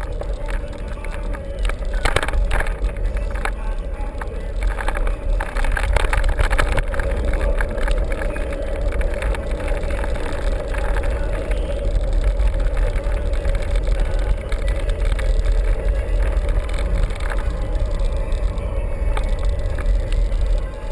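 Mountain bike being ridden over rough ground: a steady rush of wind on the microphone with many short rattles and clicks from the bike, busiest in the first several seconds.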